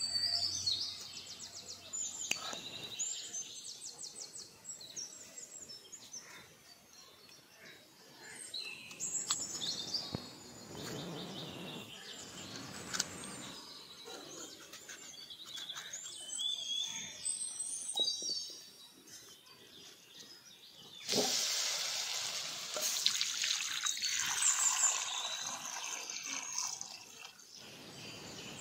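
Birds chirping and calling in the background throughout, with short high chirps. About three-quarters of the way through, a loud rushing noise lasts for a few seconds.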